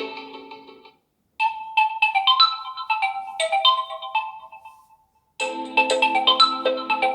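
Realme GT5 Pro ringtones playing one after another: one tune fades out in the first second, and after a short gap a higher-pitched melody plays and fades out. After another brief gap, a fuller ringtone with lower notes begins near the end.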